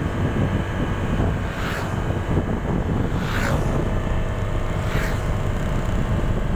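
Motorcycle riding on the road: steady low engine and road rumble with wind buffeting the microphone. Three brief falling whooshes come about a second and a half apart.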